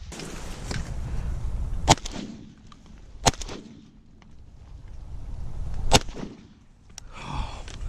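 A shotgun fired three times in quick succession, about a second and a half and then two and a half seconds apart, each blast with a short echo.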